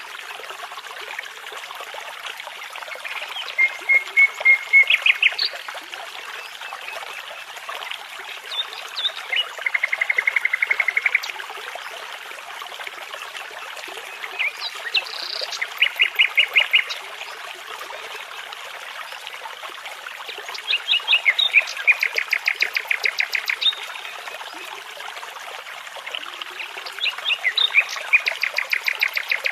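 Nightingale singing in separate phrases of rapidly repeated notes and short whistles, five phrases a few seconds apart, over the steady rush of a babbling brook.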